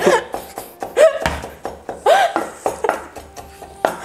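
A kitchen knife chopping green onions on a wooden cutting board and a whisk knocking against a pot, in quick irregular clicks and taps. Over them come a few short laughing voice sounds, the loudest moments, about a second and two seconds in.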